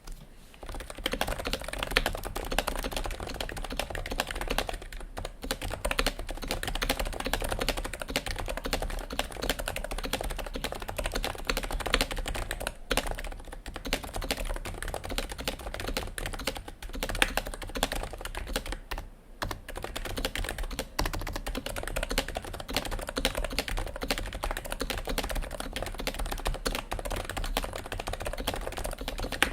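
Continuous typing on a custom 60% keyboard with Topre-style rubber domes (HHKB Pro 2 domes in Realforce housings, MX-stem sliders), a copper plate and GMK doubleshot ABS keycaps: a fast, even run of keystrokes with a few brief pauses.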